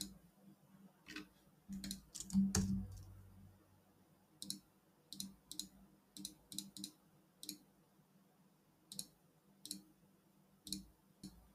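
Computer mouse clicks, faint and scattered, many of them in quick pairs, as filter dropdowns are clicked through. A dull thump about two and a half seconds in.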